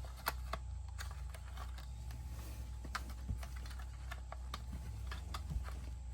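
Light plastic clicks and taps from handling a plug-in plastic insect trap while trying to slide its sticky glue card in, over a steady low hum.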